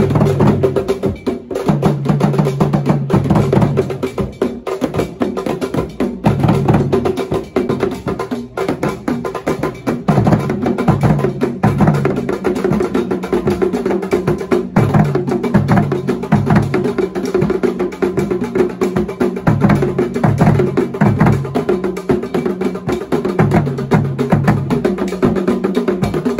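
Ensemble of traditional Ghanaian drums, tall standing drums and a pair of drums on stands, played with curved sticks in a fast, dense rhythm. Sharp clicking strikes sound over deep drum notes that come in repeated phrases.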